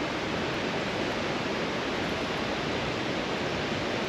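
Steady rushing of a river and the small waterfall (weir) that pours into it, an even wash of water noise with no breaks.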